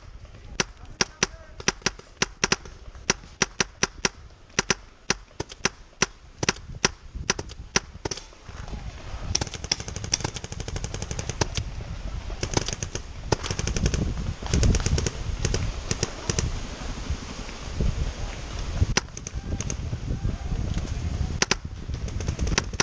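Paintball markers firing: a string of sharp pops, about three to four a second, for the first eight seconds, then scattered shots over a louder low rumble.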